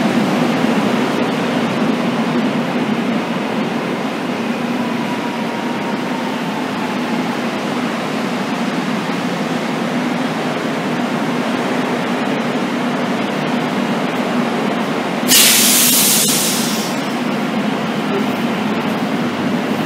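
Commuter electric trains running at a station platform, a steady hum of motors and wheels. About fifteen seconds in, a loud hiss of compressed air from the train lasts about a second and a half, then fades.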